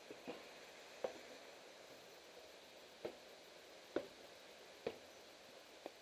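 Footsteps in cycling shoes on wooden stair treads: six sharp clacks, mostly about a second apart, over a faint steady hiss.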